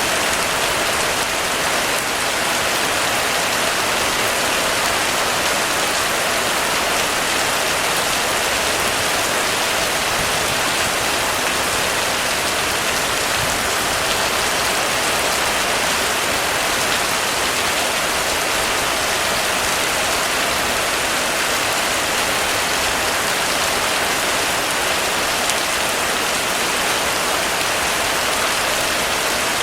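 Heavy rain falling on a roof: a dense, even hiss of countless drops striking it, holding steady without a break.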